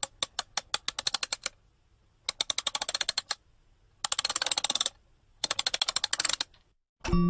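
Typewriter-style typing sound effect: four runs of rapid key clicks separated by short pauses. Chiming mallet-percussion music starts right at the end.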